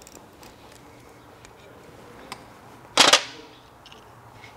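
Hand crimping pliers at work on red insulated butt connectors on fog-light wiring: a few light clicks, then one sharp, loud clack about three seconds in.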